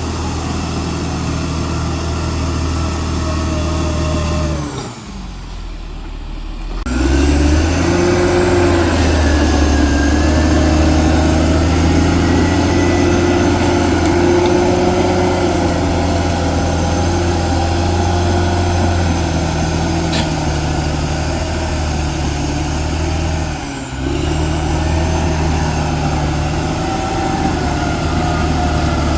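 CAT D6R XL bulldozer's diesel engine running steadily. About five seconds in it drops and quietens, then picks back up around seven seconds; there is another brief dip near 24 seconds.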